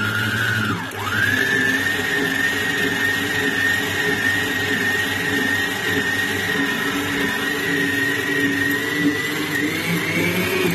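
Electric stand mixer with a whisk attachment running at speed, a steady high motor whine, as it beats shredded coconut into whipped egg whites. The whine dips briefly about a second in, then picks back up.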